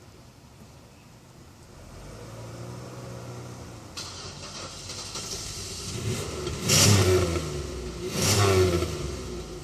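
Buick car engine running, rising from a low run and then revved twice in quick blips, the second near the end.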